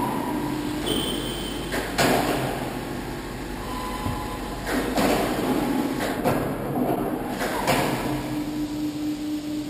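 Overhead hoist lifting a ship cooler tube bundle out of a foaming acid cleaning bath. Machinery noise comes in several rushing surges that start and stop, and a steady low hum comes in near the end.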